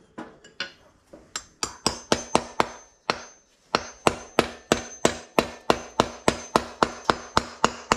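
Hammer blows on the metal bushing in the hub of a solid-rubber zero-turn mower wheel: a few light taps, then steady hard strikes about three a second, with a short pause around three seconds in. A faint metallic ring carries through the blows.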